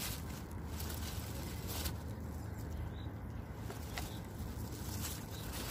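Loose, crumbly groundbait tossed by hand onto a lake's surface, landing with a few faint splashes about two and four seconds in, over a low steady outdoor rumble.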